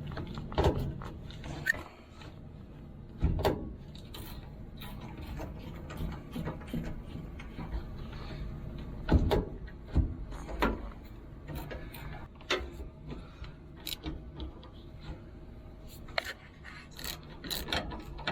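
Scattered metal clinks and knocks of hand tools working a battery bolt, with a socket ratchet starting to click near the end.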